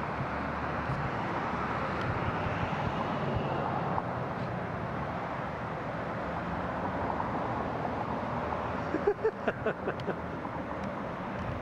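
Steady rushing outdoor background noise, with a quick run of clicks and knocks about nine seconds in.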